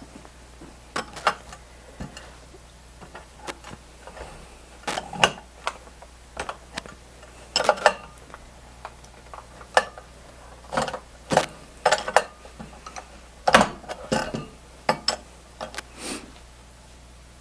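A wrench working the brass valve retaining nuts of a YELLOW JACKET TITAN refrigeration manifold loose, with the metal manifold and tools knocking on the bench: an irregular scatter of sharp metallic clicks and clanks.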